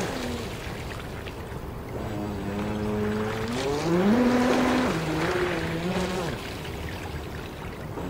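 Brushless electric motor of a radio-controlled Turbo Vee II racing boat whining as it runs on the water. Its pitch climbs about three and a half seconds in, then drops and fades out near six seconds, over a steady hiss.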